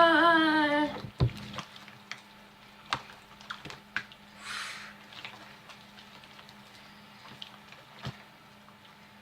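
A short drawn-out vocal sound at the start, then faint scattered taps and squishes of hands working sticky slime on a tabletop, with a brief hiss about four and a half seconds in.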